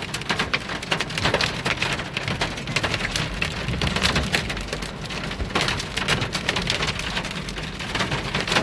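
Heavy rain and hailstones pelting a vehicle's roof and body, heard from inside the cabin: a dense, irregular patter of sharp clicks over a steady rush.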